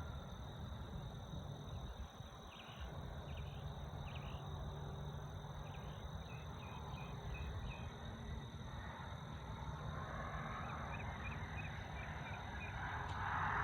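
Pond-side ambience: a steady low rumble under runs of short, high chirps from a small animal calling, repeated a few times a second. A soft hiss builds near the end.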